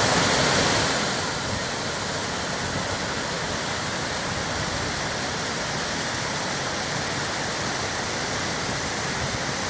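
Varone waterfall thundering, a steady dense rush of falling water with no break or change.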